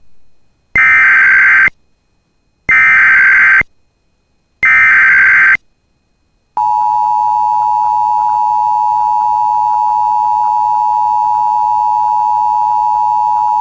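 Emergency Alert System SAME header: three identical bursts of digital data screech, each about a second long and two seconds apart, marking the start of an emergency alert. About six and a half seconds in, the steady EAS attention tone begins and holds.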